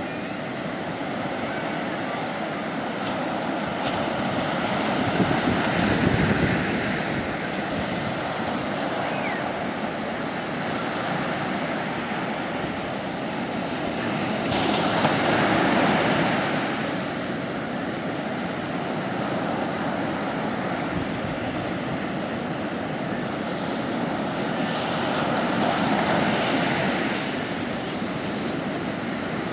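Sea waves breaking on a beach, the surf swelling about every ten seconds with a steady wash in between.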